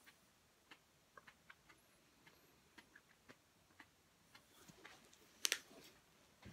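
Faint, irregular wet mouth clicks and lip smacks from a man eating a superhot pepper, with a louder smack about five and a half seconds in.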